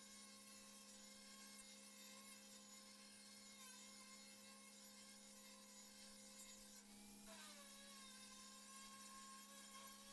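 Very faint, steady whine of an electric angle grinder grinding a weld on the sheet-steel lower edge of a truck door. Its pitch dips slightly about a third of the way in, then drops and recovers about two thirds in as the disc bites.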